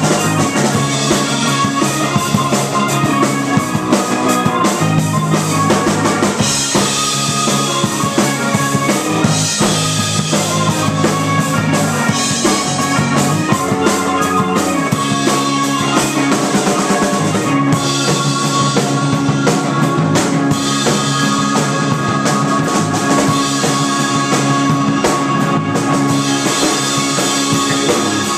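A live rock band playing an instrumental passage: a drum kit keeping a steady beat under keyboard and electric guitar.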